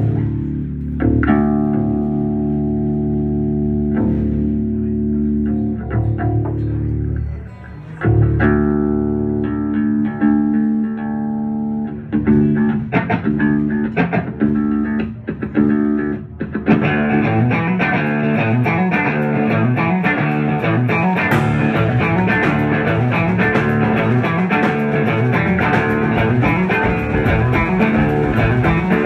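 Live rock band playing: electric guitars ring out long, held chords with a few sparse drum hits. About two-thirds of the way in, the full band comes in with steady drums and cymbals.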